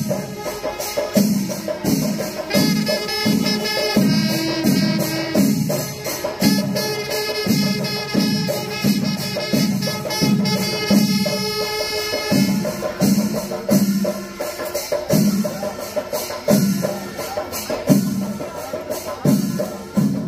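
Kerala temple percussion ensemble playing live: drums beaten in a fast, driving rhythm with sharp metallic strikes over them, and a high piping tune from about three to twelve seconds in.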